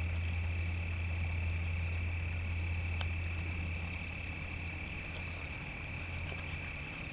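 A steady low hum under a steady high-pitched whine, with one faint click about three seconds in.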